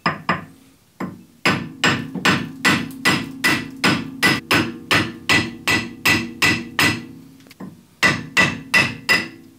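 A hand hammer striking the front wheel hub and steering knuckle, about two and a half blows a second, each with a short metallic ring, driving out the worn wheel hub bearing. A brief pause near the end, then a last run of five quick blows.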